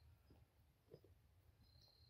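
Near silence, with a few faint scattered ticks and one faint short high chirp near the end.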